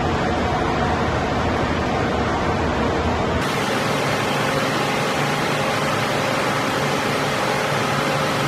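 CBC HS 90/21 synchronised hydraulic press brake running: a steady, even rushing noise from its hydraulic power unit, with faint steady tones above it. About three seconds in the sound changes abruptly and the low rumble drops away.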